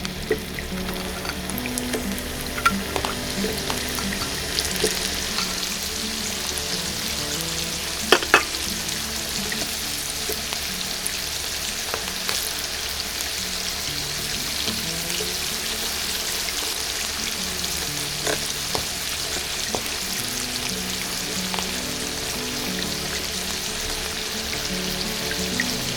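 Oil in a miniature pan sizzling and crackling steadily as chicken deep-fries, with a few sharp clicks, two loud ones about eight seconds in. Soft background music plays underneath.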